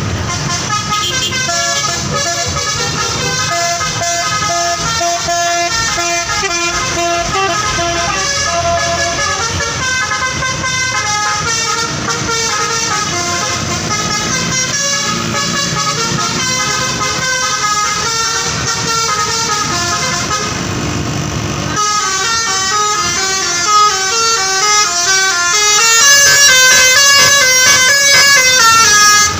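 Bus telolet horn playing a tune, several horn tones sounding together and stepping from note to note, over a low engine rumble. About two-thirds of the way through, a faster tune starts and grows louder toward the end.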